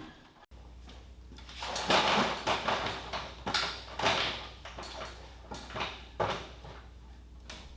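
A string of scraping and knocking handling noises, loudest in the first half, over a steady low hum.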